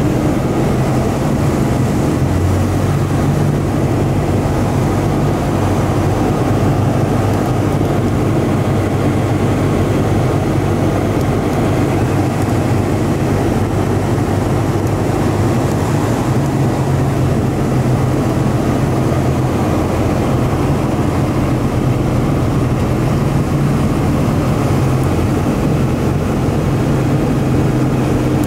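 Light single-engine plane's engine and propeller running steadily, heard from inside the cabin on the landing approach.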